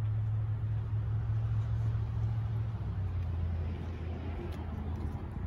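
Low, steady hum of an engine, most likely a motor vehicle's, dropping slightly in pitch about three seconds in and easing off toward the end.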